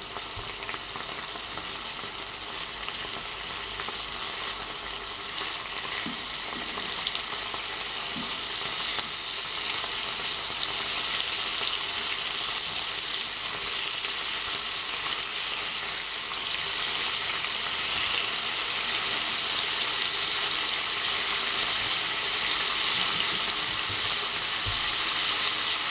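Thin-cut bacon sizzling in hot oil in a frying pan, a steady crackling hiss that grows gradually louder as the pan heats up. Partway through, tongs move and turn the rashers in the pan.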